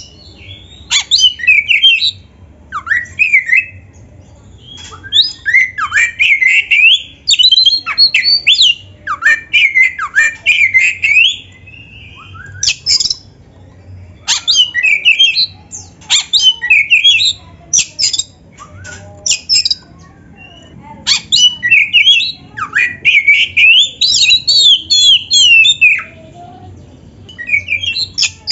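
Oriental magpie-robin (kacer) singing loudly in full voice: bursts of rapid, sweeping whistled notes a few seconds long, broken by short pauses.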